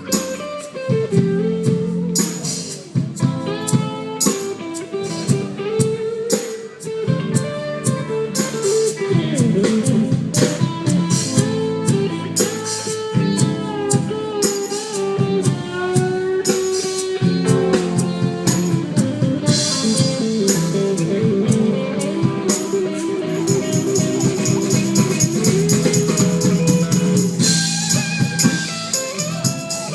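Live band playing an instrumental passage: guitar lines over a steady drum-kit beat.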